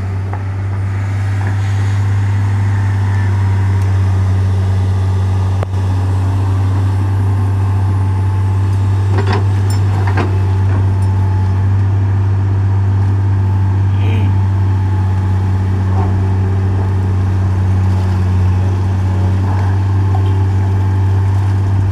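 Heavy diesel engine idling steadily, a deep even hum that does not change.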